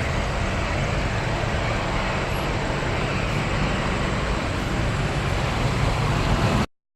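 Steady jet engine noise of a departing four-engine Boeing CC-177 (C-17) Globemaster III after takeoff, an even roar with a low rumble, cut off abruptly near the end.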